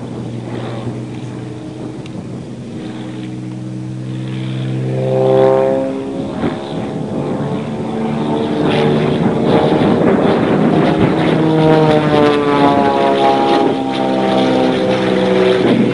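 Zlin Z-50 aerobatic propeller plane flying a display, its engine and propeller note swooping up and down in pitch as it passes and manoeuvres. The sound is loudest about five seconds in, with the pitch rising and then falling as it goes by.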